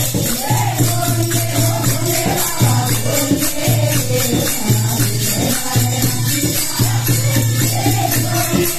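Women singing a Hindi devotional bhajan, one voice leading through a microphone, over a fast, steady jingling percussion beat of about four strokes a second with hand-clapping.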